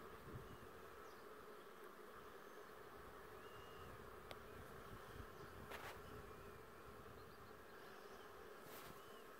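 Buckfast honeybees flying around the hive entrances, a faint steady buzzing hum.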